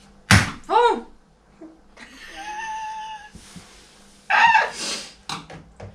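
Sharp clicks and knocks of hands and a tool working at a washing machine's door seal and its wire retaining band: one sudden snap-like click near the start, and a few lighter clicks near the end.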